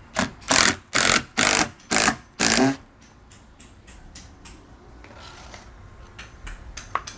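Cordless drill-driver run in six short pulses, about two a second, driving Cortex screws to tack PVC trim in place, followed by faint clicks and handling.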